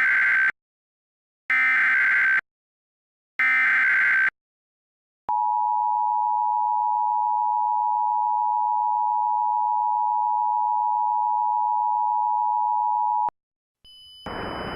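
Emergency Alert System tones. First come three SAME header data bursts, each about a second long, the first already under way. Then the two-tone attention signal sounds steadily for about eight seconds and cuts off sharply. A steady hiss begins just before the end.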